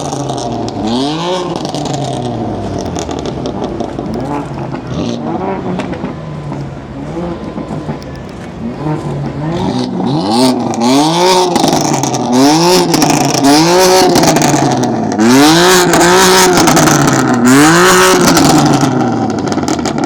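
A car engine revved hard again and again in a soundcheck, each rev climbing and falling back, a fast run of about seven blips in the second half, louder than the first, with sharp cracks from the exhaust among them.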